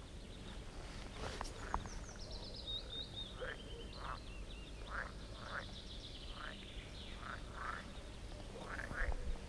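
Wild animal calls: a bird singing a run of quick high notes that fall in pitch, and a series of short rising calls repeated about every half second.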